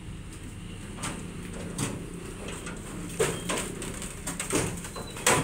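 Suzuki Jimny Katana, its engine dead, rolling down a tow truck's loading ramps: a series of sharp knocks and clunks as the wheels and body come down, the loudest near the end, over a steady low hum.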